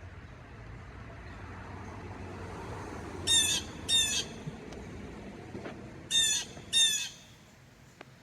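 Blue jay giving harsh jeering calls, four in two pairs, each pair about two-thirds of a second apart; scolding calls that the watchers take for tattling, perhaps on a cat.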